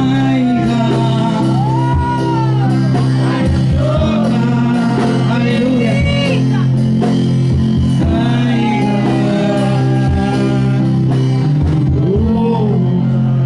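Worship band music with a steady drum beat, sustained bass and keyboard chords, and a voice singing over it.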